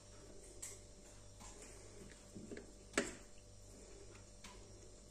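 A few soft clicks and taps of carrot slices being set down by hand in an earthenware tagine, the loudest about three seconds in.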